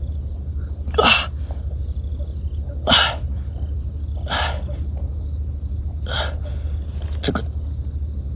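Five short, sharp breath bursts from the angler straining to pull a hooked eel from its hole, spread a second or two apart over a steady low hum.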